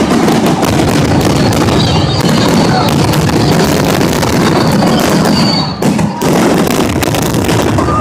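Fireworks barrage: a dense, continuous run of launches, crackles and bursts, loud throughout with a brief lull about six seconds in.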